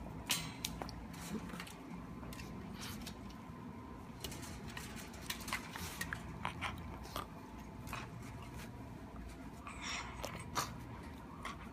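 Shiba Inu puppy mouthing and gnawing at a person's hand, with irregular small clicks and mouth noises throughout.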